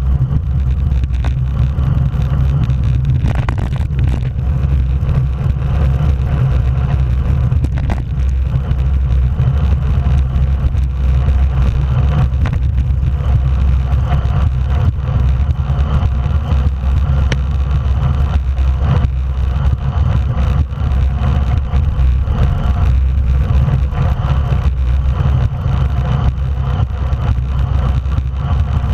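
Steady low wind rumble on the microphone, with tyre noise on asphalt, from a road bike riding at race speed in a group.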